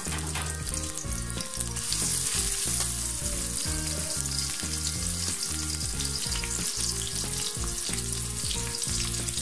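Chopped onion frying in hot oil in a steel karai, a steady sizzle with fine crackling.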